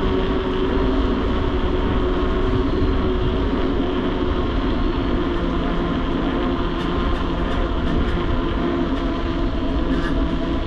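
Steady rushing wind and road noise picked up by a handlebar-mounted GoPro on a moving mountain bike, with a low hum from the knobby tyres on pavement. A few faint light ticks come in over the last few seconds.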